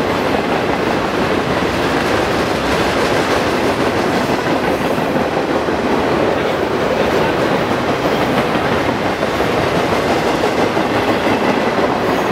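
BNSF intermodal freight train's cars, loaded with truck trailers, rolling past at speed: a loud, steady noise of steel wheels running on the rails.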